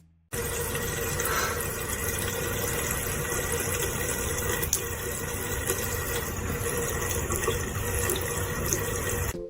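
Steady rushing noise with a faint steady hum, starting suddenly just after the start and cutting off near the end.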